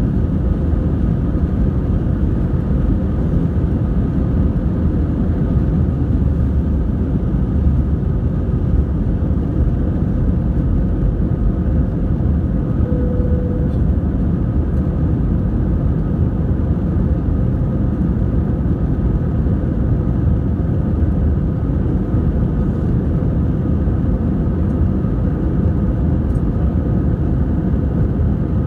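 Airbus A321 engines at takeoff power heard from inside the cabin through the end of the takeoff roll, liftoff and initial climb: a steady low rumble with faint steady tones above it.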